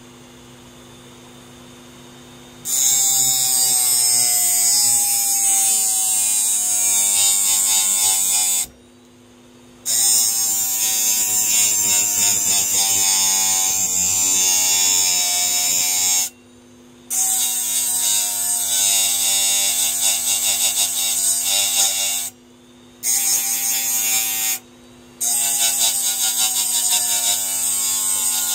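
Steel utility-knife blade grinding against sandpaper on a spinning hard-disk platter, throwing sparks: a loud harsh hiss with a wavering whine. It starts about three seconds in and stops four times briefly as the blade is lifted off.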